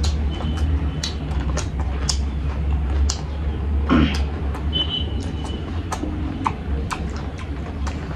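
Close-up eating sounds from two people eating rice and chicken by hand: irregular wet chewing clicks and lip smacks, with a crunchy bite into a cucumber slice. A steady low rumble runs underneath.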